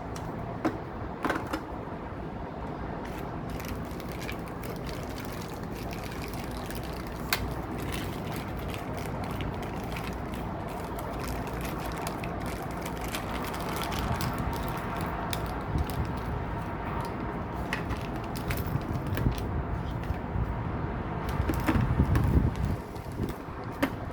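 A toy and its packaging being handled: rustling with many scattered sharp clicks and taps over a steady background hum, and a louder low rumble near the end.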